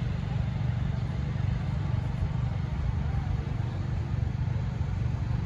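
Steady low engine rumble, as from the gas-engined inflator fans that blow cold air into hot air balloons being readied for launch.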